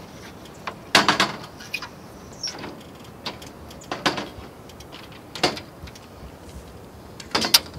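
Aluminium-framed solar module knocking and scraping against the ground-mount racking rails and clamps as it is pushed and settled into place: a series of irregular sharp clunks, the loudest near the end.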